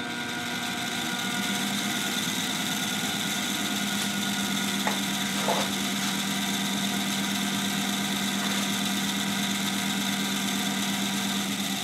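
Crankshaft balancing machine spinning a big-block Chevy crankshaft with bobweights: a steady machine hum with a high hiss, which stops near the end. This is a check spin to read the remaining imbalance after a counterweight hole has been drilled deeper.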